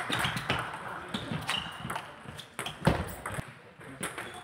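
Celluloid-type table tennis ball clicking sharply off rubber paddles and the table during a rally, the hits coming at an irregular pace.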